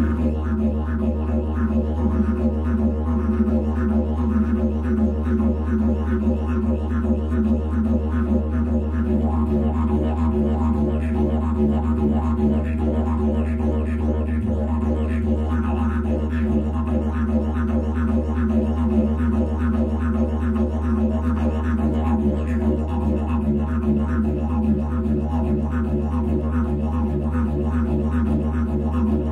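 Didgeridoo music: a steady low drone with quick rhythmic pulsing over it, continuing without a break.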